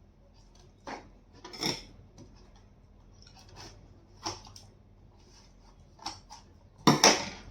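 Handling sounds of a gift bottle: scattered light clicks and knocks, with a louder double knock near the end.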